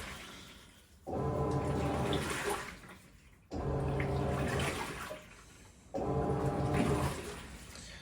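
Teco 10 kg top-load washing machine agitating: the agitator motor hums in strokes that start abruptly about every two and a half seconds and fade away, while water sloshes around the tub.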